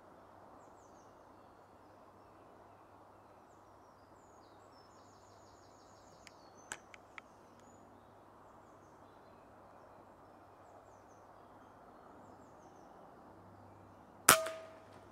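A single air rifle shot near the end: one sharp crack with a short ringing tail. Behind it are steady outdoor background noise and faint small-bird calls.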